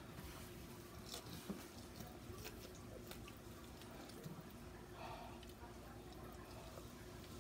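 Faint chewing and biting of sauced fried chicken, with a few small clicks as meat is pulled off the drumstick, over a faint steady hum.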